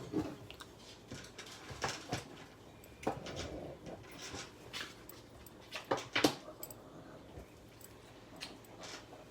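Clicks and taps of a phone box and its packaging being handled, irregular and of varying loudness, the sharpest about six seconds in, with a couple of short, soft whining sounds near the start and about three seconds in.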